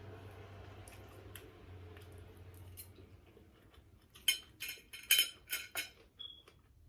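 Cutlery clicking against a plate during a meal: a faint hum at first, then a run of about six sharp clinks in the second half.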